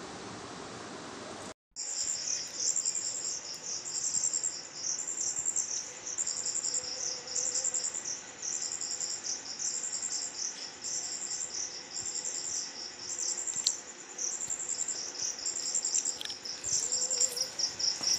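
Insects chirping in high-pitched, rapidly pulsed trills that repeat in an even rhythm. Before them, a short steady hiss cuts off abruptly about a second and a half in.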